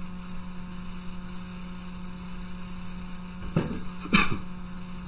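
Steady electrical mains hum in the recording, with two brief noises about three and a half and four seconds in.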